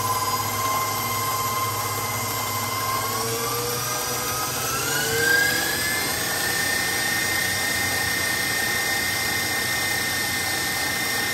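KitchenAid stand mixer motor whining as its whisk beats egg whites. The whine holds steady, then climbs to a higher pitch about halfway through as the mixer speeds up, and holds there.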